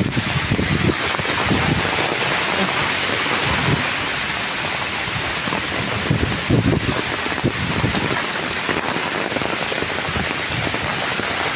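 Heavy typhoon rain pouring down onto a wet road in a steady, dense hiss, with irregular low rumbles.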